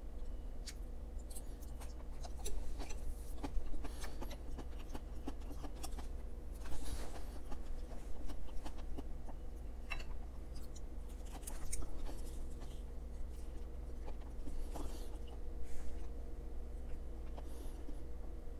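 Close-miked chewing and wet mouth sounds of a person eating a mouthful of bibimbap: many small sharp clicks and smacks with a few longer moist swells. A faint steady hum sits underneath.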